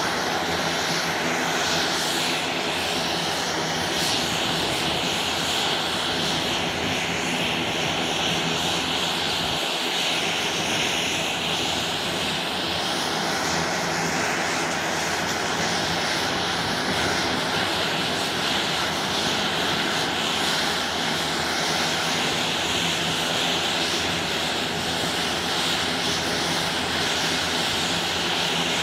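Twin Garrett TPE331 turboprops of a Beech B100 King Air, both running steadily at ground idle with a high turbine whine over the propeller drone.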